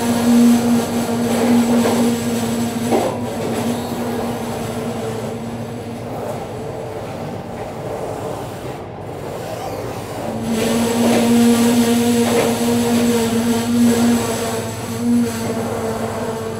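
Passenger train running along the track, heard from inside a coach. A steady rumble runs under a low droning hum that fades out about three seconds in and comes back about ten seconds in, with a few short knocks.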